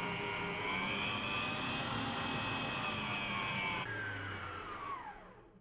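Eurolux electric stand mixer running with its balloon whisk beating cream and condensed milk in a steel bowl, a steady motor whine. About four seconds in it is switched off and winds down, its pitch falling as it fades, the cream whipped stiff.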